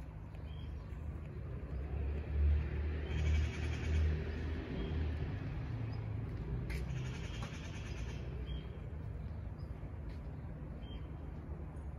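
Outdoor street ambience: a low rumble that swells about two to five seconds in and then settles, with faint high chirping now and then.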